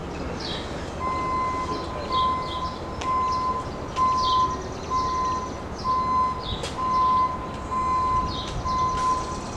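Vehicle backup alarm beeping at an even rate, about one and a half beeps a second, starting about a second in. Birds chirp over it.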